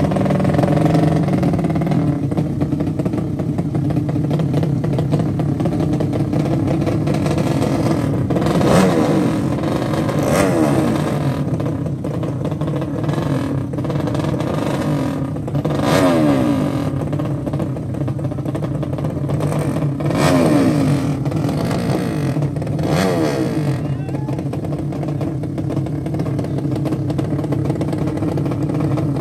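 Drag-racing motorcycle engines: one runs steadily throughout, while others rev up and fall back in short sweeps about nine, sixteen, twenty and twenty-three seconds in.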